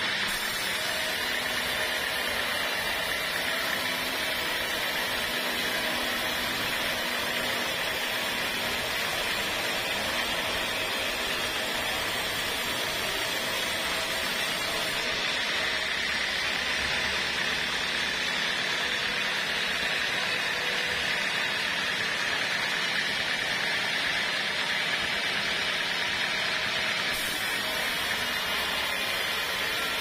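Home-made vertical bandsaw sawmill running steadily, its band blade cutting lengthwise through a waru gombong log to make planks.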